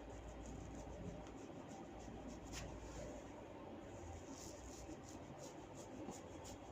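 Long hair being tugged and rubbed between fingers in a hair-cracking head massage: a quiet run of small, quick crackles and rustling, with one sharper crack about two and a half seconds in.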